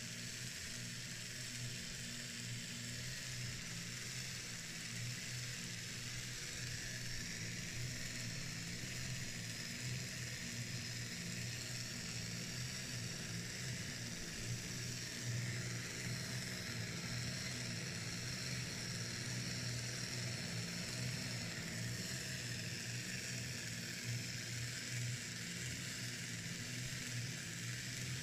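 Replica of William Skinner's 1939 gravity-power machine running, its weights swinging round on their rods with a steady mechanical whir, a low hum and a hiss.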